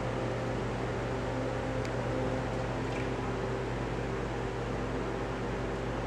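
Steady machine hum with a faint hiss, unchanging throughout.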